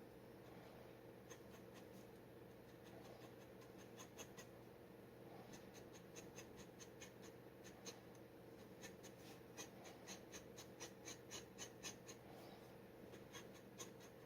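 Steel G nib of a dip pen scratching on paper in short, faint strokes, coming quicker and closer together in the second half.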